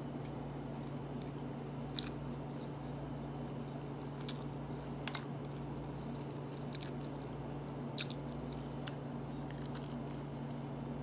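A person eating rice and lamb by hand: chewing and biting with small wet mouth clicks and smacks scattered through, over a steady low hum.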